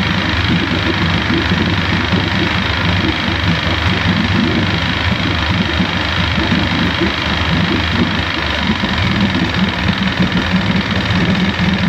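1973 Johnson 65 hp two-stroke outboard engine idling steadily while it warms up from cold.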